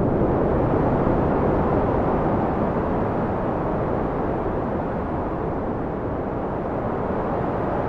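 Wind blowing in a steady, low rushing noise with no distinct gusts, easing slightly in strength through the middle.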